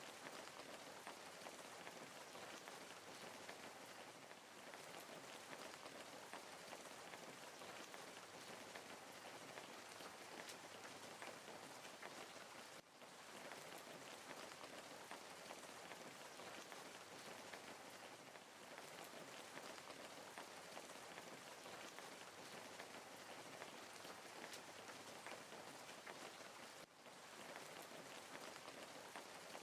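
Wood fire crackling quietly: a steady hiss of burning wood, thick with small rapid pops and snaps.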